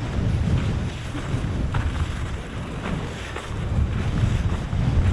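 Wind buffeting the microphone: a gusty low rumble that swells and eases, strongest near the end.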